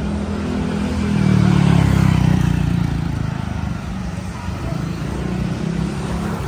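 Road traffic with a motor vehicle engine passing close. It grows louder for a second or two about a second in, then falls back into the steady traffic.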